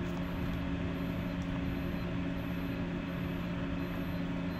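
Steady electrical hum from energized small distribution transformers and their power supply, a drone of several steady low tones over a faint hiss.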